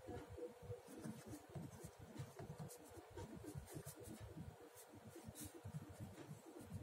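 Faint scratching of a pen on paper as a word is handwritten, in short irregular strokes.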